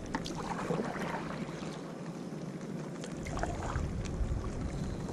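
Sea water lapping and sloshing around a kayak, with a few light clicks and knocks near the start.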